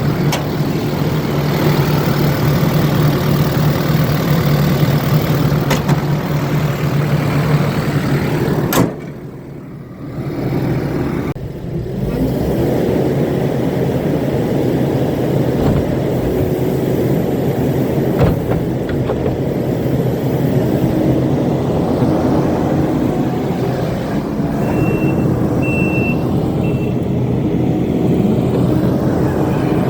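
Kubota SVL95-2 compact track loader's diesel engine running steadily with a low drone. The sound drops away briefly about nine seconds in, then the engine carries on, and a few short high beeps sound near the end.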